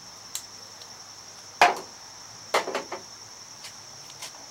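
Sharp knocks and clacks from handling the Sea Foam bottle and the hedge trimmer's fuel tank while the additive goes in: one loud knock about a second and a half in, then a quick cluster of clacks about a second later. A steady high insect chirring runs underneath.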